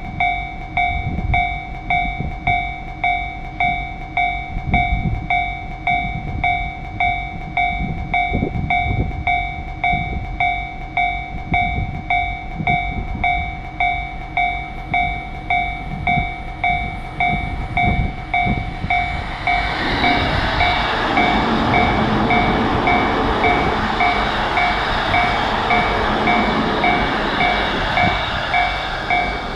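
Japanese railroad-crossing alarm ringing its steady, evenly repeated bell-like 'kan-kan' strokes throughout. About twenty seconds in, a passing train's running noise builds up under the bell and continues.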